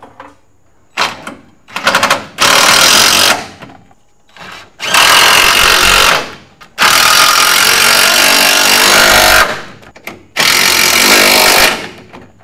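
Cordless impact wrench hammering bolts into the rear trailing arm bracket of a VW bus, in four runs of about one to two and a half seconds each, with a few short clicks before the first run.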